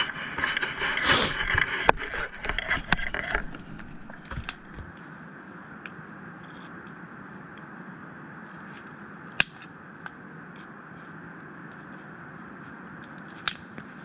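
Scraping and rustling for the first three seconds or so, then a steady rushing noise with two sharp clicks, one about nine seconds in and one near the end.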